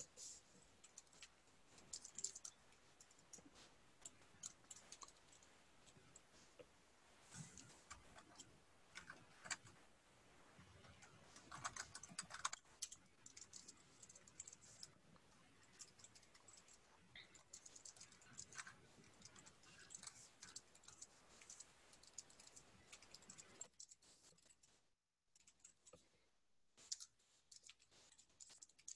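Faint computer keyboard typing, irregular keystrokes and clicks, pausing briefly about twenty-four seconds in.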